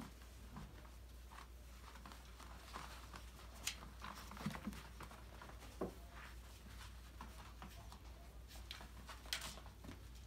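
Faint scattered taps and small knocks of young labradoodle puppies moving about and playing with toys on a play mat, with a few sharper clicks among them.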